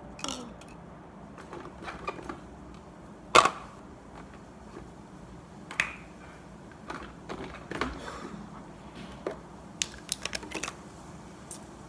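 Irregular clicks and knocks from small objects being handled. The loudest is a sharp knock about three and a half seconds in, and a quick run of clicks comes near the end.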